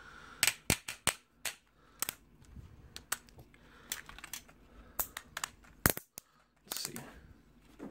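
Irregular sharp clicks and knocks of a hard plastic toy lion being handled as its leg and paw joints are moved, about a dozen in all. The loudest come near six and seven seconds in.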